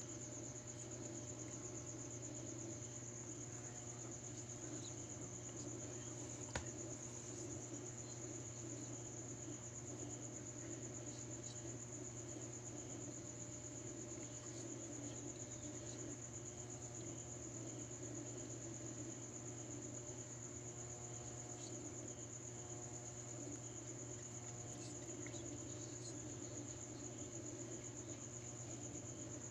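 A cricket trilling without a break, a steady high-pitched chirr over a low, steady hum, with a single sharp click about six and a half seconds in.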